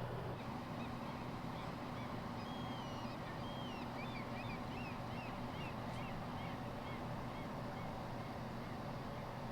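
Steady low mechanical hum, with many short bird chirps and twitters over it from about two to eight seconds in.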